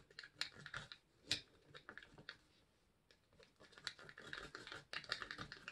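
Stir stick scraping and tapping against the sides of a small cup as acrylic paint and pouring medium are stirred together: faint scratchy ticks with one sharper click about a second and a half in, then a quicker run of scraping ticks over the last couple of seconds.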